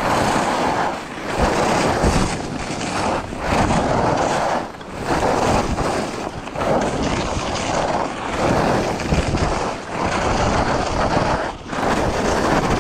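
Skis scraping and carving on hard-packed snow through a series of short turns, the scrape swelling and fading with each turn about every second and a half, over wind rushing across the microphone.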